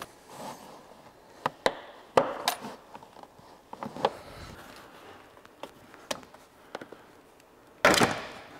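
Plastic kick panel being pried out of a truck's footwell: a string of sharp clicks and snaps as its retaining tabs pop and some break off, then a louder, longer scrape near the end as the panel works loose.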